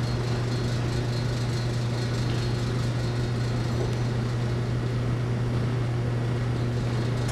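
A steady, unchanging low hum with an even hiss of noise over it. No distinct footfalls, commands or voices stand out.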